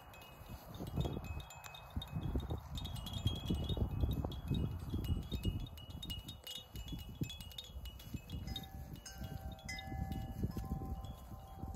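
Wind chime ringing, several metallic tones overlapping and fading, with lower notes joining after about eight seconds, over an uneven low rumble.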